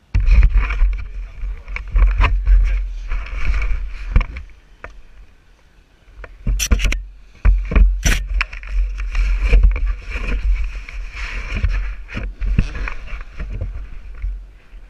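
Wind buffeting a GoPro's microphone, a heavy, uneven rumble, with scattered knocks and rubbing from the camera being handled. Two sharp knocks stand out between about six and a half and eight seconds in.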